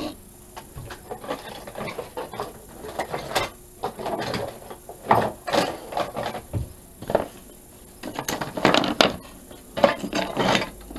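Irregular knocks and clatter of objects being handled and moved while someone rummages for a screwdriver, with drawer and wood sounds among them.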